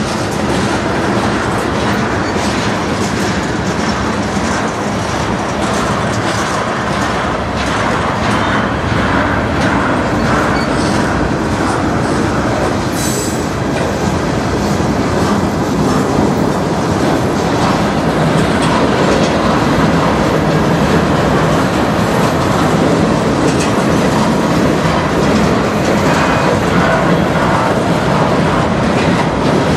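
Freight train cars of a CN manifest rolling past, a steady loud run of wheels on rail with a quick clickety-clack of wheels over rail joints. A short high squeal comes about thirteen seconds in.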